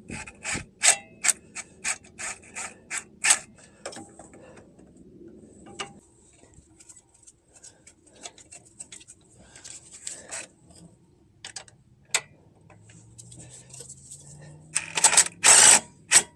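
Wheel hub mounting bolts being backed out with tools: a quick run of sharp ratcheting clicks, about three a second, for the first few seconds, then scattered clicks. Near the end a drill motor whirs up, rising in pitch, with a loud rattle.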